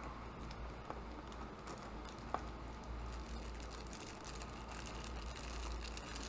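Faint rustling and light clicks of a small plastic-wrapped figure accessory being handled, with one sharper click about two and a half seconds in, over a steady low hum.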